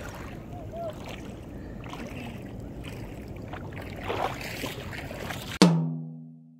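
Water sloshing as an Akita and a person wade in a shallow lake. About five and a half seconds in, a sudden low ringing note starts loud and fades away over about a second.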